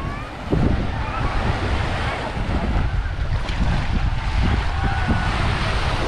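Small waves washing on the sand at the water's edge, with wind buffeting the microphone and faint distant voices of beachgoers.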